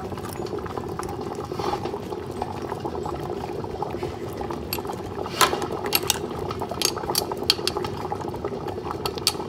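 Water simmering steadily in a steamer pot, with a handful of sharp clinks against a glass jar in the second half as the softened kumquats inside are pressed down.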